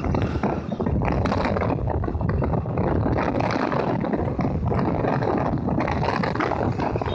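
Steady rushing noise of wind buffeting the microphone and road noise from a vehicle moving through city traffic, with no distinct horn or engine note standing out.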